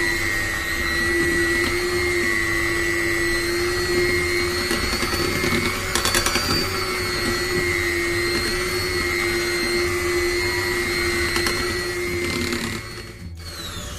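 Electric mixer running steadily at low speed, beating pukis batter of flour, sugar, eggs and coconut milk, with a constant motor whine; it switches off shortly before the end.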